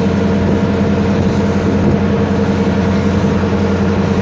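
A vehicle's engine running steadily at an even speed, with no change in pitch.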